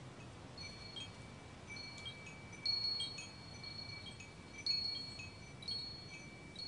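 Wind chimes tinkling: high metallic tones struck at irregular moments and left ringing, the strongest strikes a few seconds in and again near the end.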